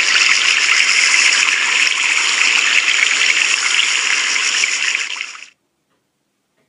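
Running water: a steady trickling stream that cuts off about five and a half seconds in.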